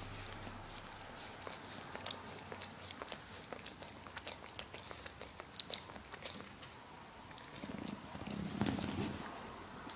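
Dog licking a sofa cushion: irregular wet tongue clicks and smacks, a few each second. Near the end a louder, lower rustling noise lasts about a second and a half.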